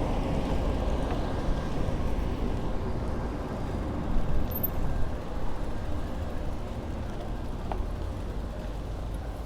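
Steady low rumble of wind and riding noise on the camera microphone, fading slightly toward the end.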